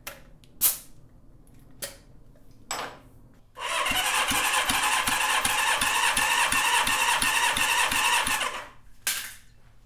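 Honda CB550 four-cylinder engine cranked over for about five seconds for a compression test, with a gauge screwed into one spark-plug hole: a steady whirr with a regular thump about three times a second as a cylinder comes up on compression. A few sharp clicks come before it, and one more just after it stops.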